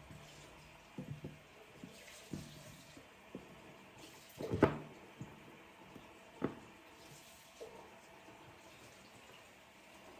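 Kitchen sink sounds: water from the tap splashes briefly about four and a half seconds in, amid light knocks and clinks from handling things at the sink.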